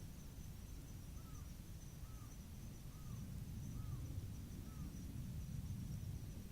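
Outdoor ambience: a steady, high insect trill, with a bird giving five short, evenly spaced call notes in the middle, over a low rumble.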